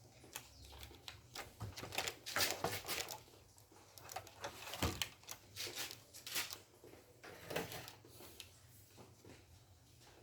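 Scattered light clicks, taps and rustles of hands handling parts, as a heater element is being fitted onto a refrigerator's tube-type evaporator plate.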